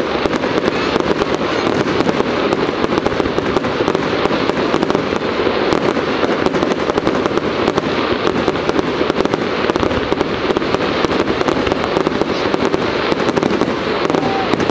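Fireworks display in full barrage: aerial shells bursting and crackling stars in a rapid, unbroken run of bangs and pops, many each second.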